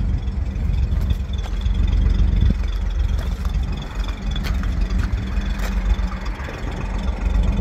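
Toyota Land Cruiser FJ40's inline-six petrol engine idling with a steady low rumble, heard from beside the rear of the truck.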